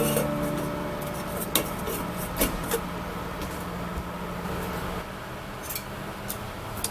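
Stainless steel lid on a pot of boiling pasta water: a few light metal clicks over a steady low hiss.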